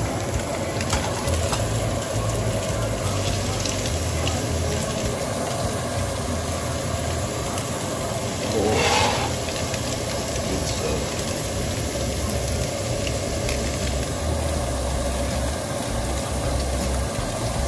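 Fish fillets sizzling steadily in hot butter in a frying pan, with a brief louder swell about nine seconds in.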